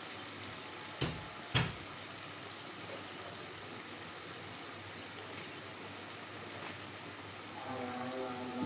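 Bok choy simmering in sauce in an aluminium wok over a gas flame: a steady low hiss of bubbling. Two sharp clicks come about a second and a second and a half in, and near the end a steady pitched sound with overtones comes in.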